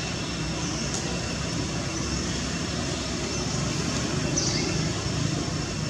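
Steady low outdoor rumble, with faint short high chirps about a second in and again about four and a half seconds in.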